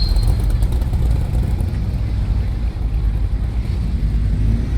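Classic car's big engine running close by, a steady deep rumble.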